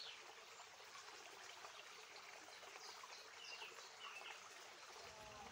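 Near silence: faint outdoor background hiss, with a few faint, short high chirps in the second half.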